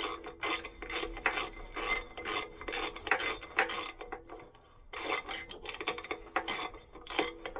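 Ratcheting spanner clicking in quick repeated strokes, about three a second, as a 12 mm nut is tightened on a stud of a Lambretta engine. There is a short pause about four seconds in, then the strokes start again.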